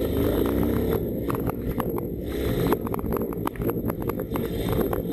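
A 250 cc motorcycle engine running at low speed as the bike creeps along in slow traffic, with many short clicks over the engine sound from about a second in.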